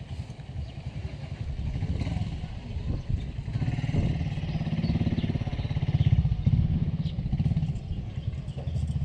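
A small engine running steadily, a low rapid pulsing that swells louder about six seconds in.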